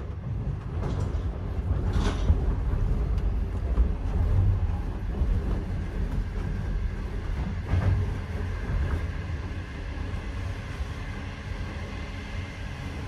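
Running noise inside a moving sleeper carriage: a steady low rumble of the wheels on the track, with a couple of sharp knocks about two seconds in and again near eight seconds.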